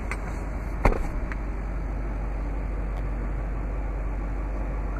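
Steady low running noise of a 2009 Chevrolet Silverado 2500 HD, heard inside its cab, with a sharp click a little under a second in.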